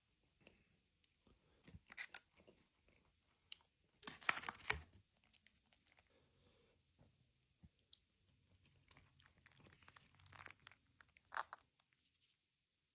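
Crisps being bitten and chewed: irregular bursts of crunching, loudest about four seconds in, with smaller bursts around two seconds and again near the end, and quiet gaps between them.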